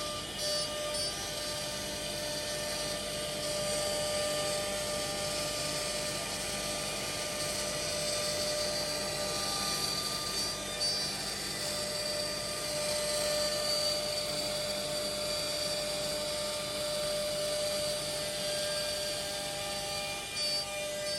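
High-speed spindles of a four-head CNC router whining steadily as they cut wood-based board. The level drops briefly three times.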